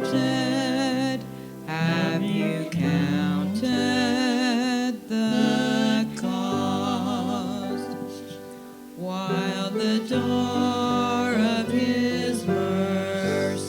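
A slow hymn sung by a single voice with vibrato over instrumental accompaniment, with long held notes.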